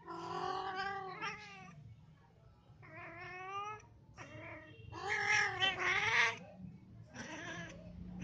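Cats yowling while mating: a run of long, drawn-out yowls that waver in pitch, the loudest just past the middle.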